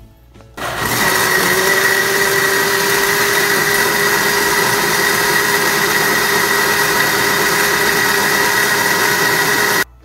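Countertop electric blender running steadily, its motor whining as it blends a liquid cake batter of eggs, canned corn, oil, sugar and milk. It starts up about half a second in, rising slightly in pitch, and stops abruptly near the end.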